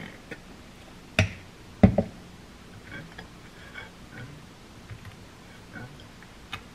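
Two sharp clicks about a second in, then soft, irregular scraping as a butter knife spreads peanut butter across a slice of toast on a plate.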